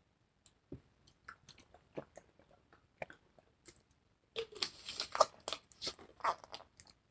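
Someone drinking from a plastic water bottle: a few faint clicks, then about four seconds in a short run of swallowing gulps and crackles of the plastic bottle.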